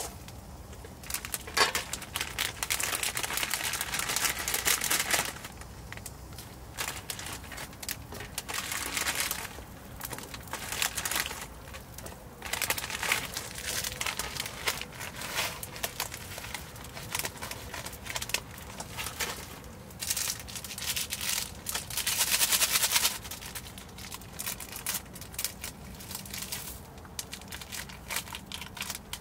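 Plastic instant-ramyeon packets crinkling and tearing in several bursts, over the steady bubbling of water boiling in a small aluminium pot.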